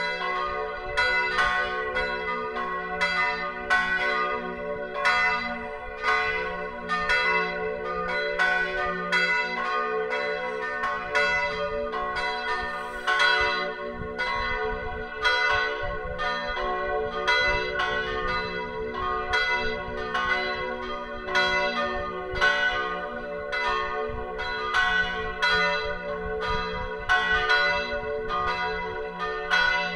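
Full peal of three bronze church bells tuned F♯, B and D♯ (cast 1582, 1604 and 1947), all swinging and ringing together. Their strikes tumble over one another at about two a second above a sustained hum.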